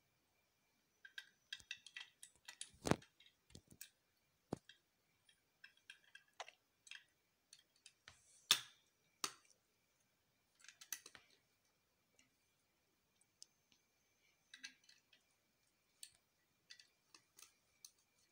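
Plastic Lego bricks clicking and rattling as they are handled and pressed together, in scattered sharp clicks at irregular times, the loudest about three seconds in and again near the middle.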